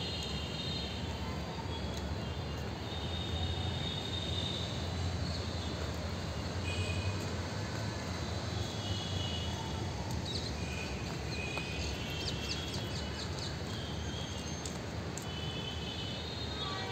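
Birds chirping and trilling in short scattered calls over a steady low rumble of outdoor background noise.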